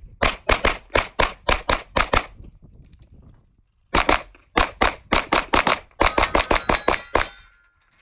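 Open-division competition pistol fired in rapid strings, four or five shots a second: about nine shots, a pause of about a second and a half, then a longer string of a dozen or so shots that stops near the end.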